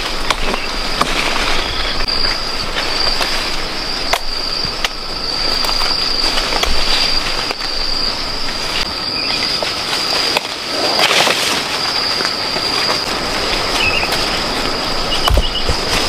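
Pomelo-tree leaves and branches rustling as hands move through them and handle the fruit, with scattered clicks, a louder burst of rustling about eleven seconds in, and a steady high-pitched drone throughout.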